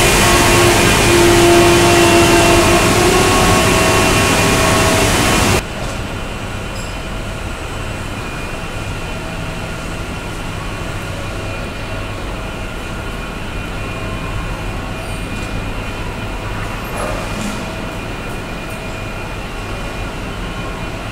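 Woodworking machinery running in a furniture workshop: a loud, steady, hissing machine noise that cuts off abruptly about five and a half seconds in, leaving a quieter steady hum with several held tones.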